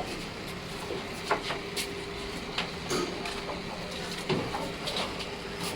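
Scattered short knocks and clicks, a few seconds apart, over a faint steady hum.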